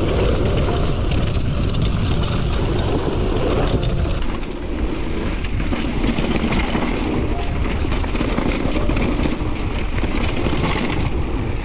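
Downhill mountain bike ridden fast over a gravel and stony trail: tyres crunching and the bike rattling and clicking over bumps, under steady wind rushing over the microphone.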